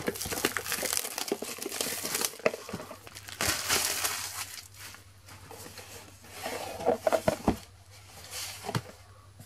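Plastic shrink-wrap crinkling and tearing as it is pulled off a trading-card bundle box, in loud bursts through the first half. Fainter rustles and a few light knocks follow near the end as the cardboard lid is handled and lifted.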